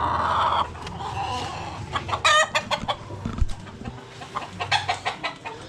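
Rooster clucking and calling, its clearest call about two seconds in, with scattered light taps and clicks.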